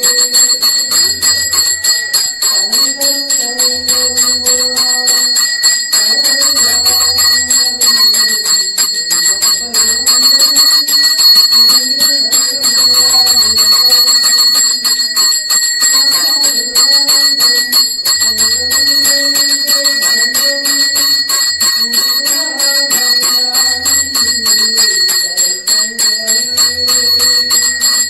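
Brass temple hand bell rung rapidly and continuously for the aarti lamp offering, its high ringing tones held throughout. Under it, devotional music with a slow wavering melody and a low drumbeat every couple of seconds.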